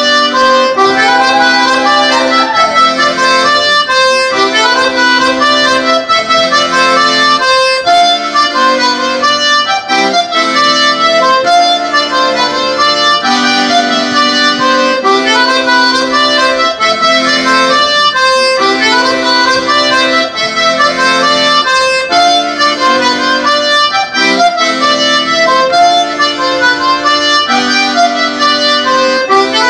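Accordion playing a lively traditional Breton dance tune, a running melody over regularly repeating bass chords.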